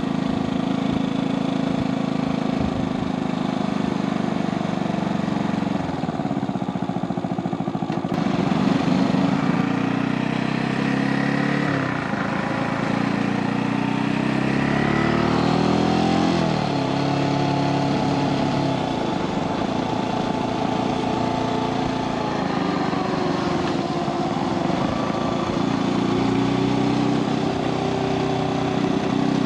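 Brixton Felsberg 250's single-cylinder engine running under way, its pitch rising and falling several times as the throttle opens and closes, over a steady rush of wind noise.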